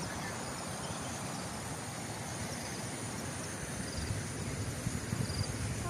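Rural outdoor ambience: insects, crickets among them, keep up a steady high drone with brief repeated chirps. A low rumble swells in over the last couple of seconds.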